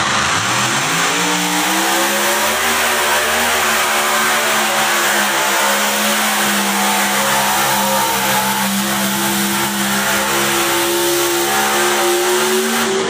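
A competition pulling vehicle's engine revving up sharply, then held at full throttle at high revs for about eleven seconds with its pitch creeping slightly higher, as on a pull down the track. The engine drops off suddenly near the end.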